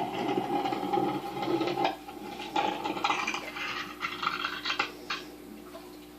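Muffled rubbing and scraping with scattered knocks from a GoPro in its waterproof housing being hauled up through a hole in the ice. A steady hum in the first two seconds stops suddenly.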